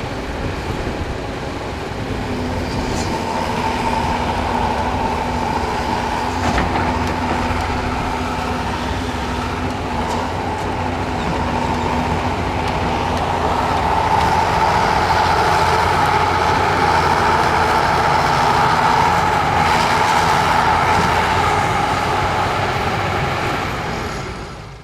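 Heavy diesel earthmoving machinery running with a steady engine drone, growing louder about halfway through. There is a single sharp knock about six and a half seconds in, and the sound fades out at the very end.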